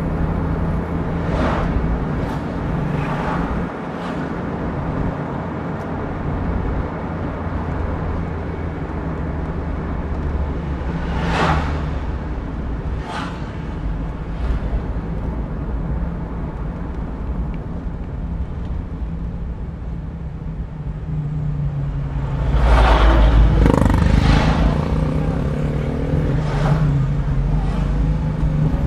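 Engine and road noise inside the cabin of a moving Daihatsu Terios, steady, with a few brief sharp sounds over it. The noise gets louder about two-thirds of the way through.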